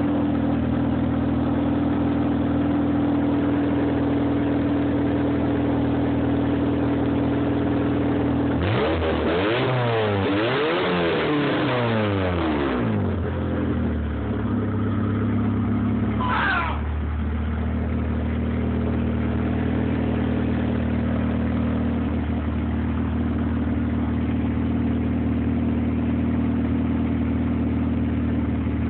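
Honda B16B 1.6-litre DOHC VTEC four-cylinder engine idling steadily, then revved several times from about nine seconds in, the pitch climbing and dropping, before settling back to a steady idle around thirteen seconds in. A brief higher-pitched sound comes a few seconds later.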